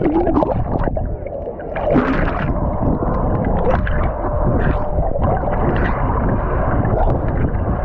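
Wave pool water sloshing and gurgling against a GoPro held at the surface: a steady loud churning broken by frequent small splashes.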